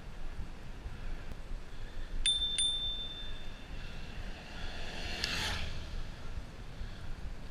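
A bicycle bell rung twice in quick succession, a bright ding-ding that rings on for about a second, over the low rumble of wind and tyres on the move. A brief rushing swell follows a few seconds later.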